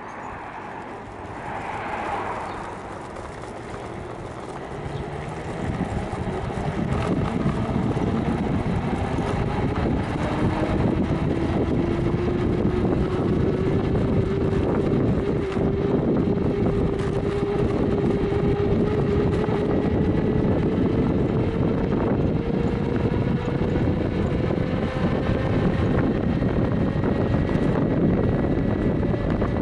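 A 250 W 24 V brushed DC motor drives a screw-studded friction roller against the recumbent trike's tyre. Its whine sets in a few seconds in and rises slowly in pitch as the trike picks up speed. Under it runs a steady rumble of tyre and road, with wind on the microphone.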